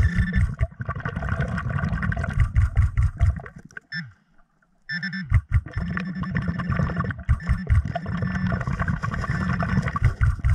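Underwater bubbling and rumble of a diver's exhaled air, muffled through the submerged camera, with a brief pause about four seconds in.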